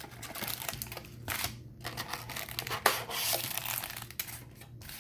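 Trading-card packaging being handled and torn open: irregular crinkling and tearing of wrapper, with a sharp click about three seconds in.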